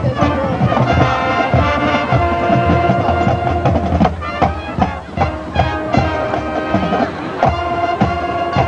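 High school marching band playing: horns hold sustained chords over a drumline of snare and bass drums striking a steady rhythm.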